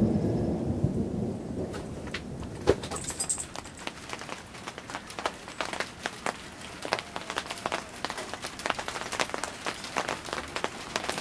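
Thunder rumbling low and dying away in the first couple of seconds. Then the first big raindrops of a summer thunderstorm start hitting nearby surfaces, sharp scattered ticks that soon come thick and fast as the rain sets in.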